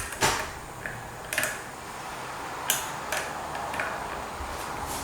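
Scattered sharp clicks and light taps of metal fan hardware being handled while a screw is started by hand.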